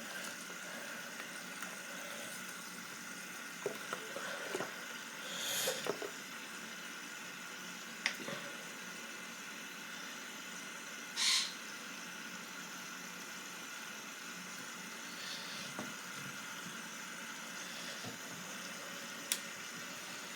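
Water running from a tap into a sink while a doll's hair is washed and squeezed, with a few short louder rushes of water and light clicks.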